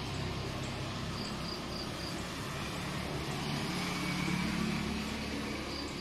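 Steady low hum of a motor vehicle engine in the background, swelling about four seconds in. An insect's quick high chirps come in short runs about a second in and again at the end.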